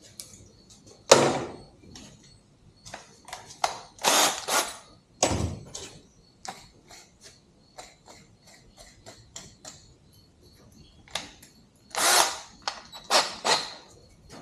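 Metal scooter parts and hand tools being handled on a workbench: irregular knocks and clatters, a few louder bangs spread through it, as the Razor swing arm is set in place.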